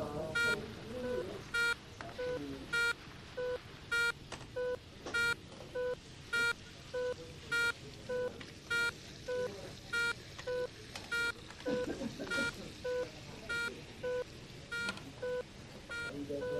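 Electronic alarm on hospital equipment beeping steadily, a higher beep and a lower beep alternating about every half second.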